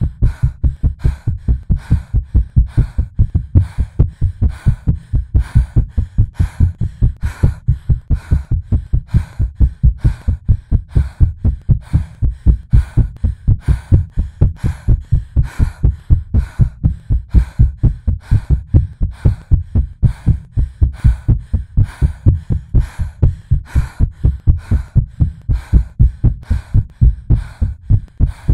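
Heartbeat sound effect, an artificially made and edited recording of a racing heart: a fast, even run of deep thuds that holds a steady pace.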